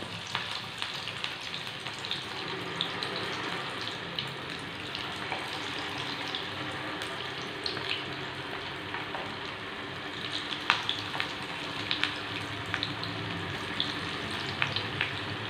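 Pakoda batter of bread and chicken deep-frying in hot oil in a kadai: a steady sizzle with scattered sharp pops and crackles, more of them in the second half.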